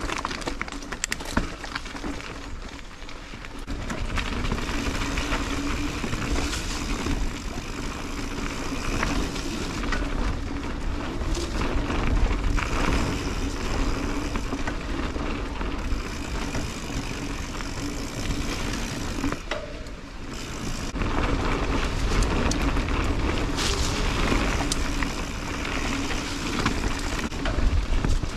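2021 Santa Cruz 5010 mountain bike being ridden down a dirt trail: tyres rolling over the ground, with rattles and knocks from the bike and a heavy low rumble of wind on the microphone. It eases off briefly about three seconds in and again around twenty seconds in.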